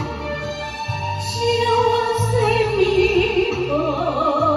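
A woman singing a song into a handheld microphone over instrumental backing, holding long notes with a wavering pitch.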